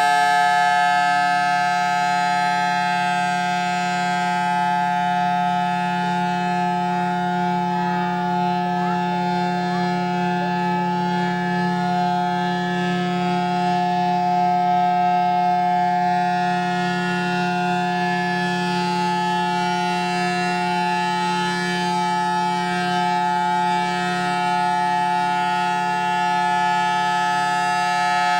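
Federal Signal Thunderbolt 1000T civil defense siren sounding a steady tone that holds its pitch, loud and unbroken. The siren is reverse-wired, so its blower runs backward and sucks air in through the horn instead of blowing it out.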